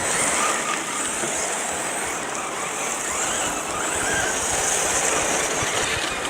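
Electric 1:8 RC short-course truck with a brushless motor being driven: a steady, even noise of motor and tyres, with a faint whine.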